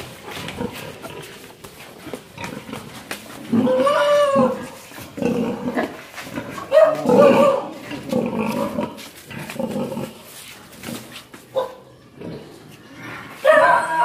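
Pigs grunting and giving several drawn-out squealing calls, each about a second long, while a boar mounts a sow to mate; the loudest come about four and seven seconds in and again near the end.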